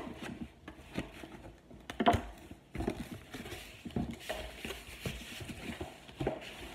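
Cardboard shipping box being cut and pulled open by hand: irregular scraping, tapping and knocks of cardboard and tape, the sharpest knock about two seconds in.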